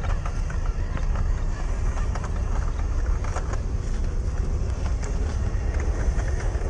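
1/16-scale WPL C14 RC truck driving off-road, with short crackles from the tyres over rough ground over a steady low rumble.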